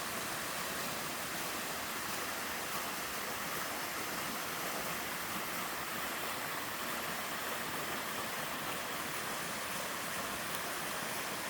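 Steady rush of a waterfall and mountain stream water, even and unbroken.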